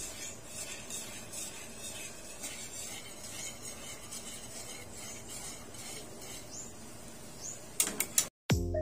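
Wire whisk stirring a thickening coconut-milk and cornstarch mixture in a metal pan, with repeated faint scraping and swishing strokes. Near the end a few sharp clicks, a brief dropout, then music begins.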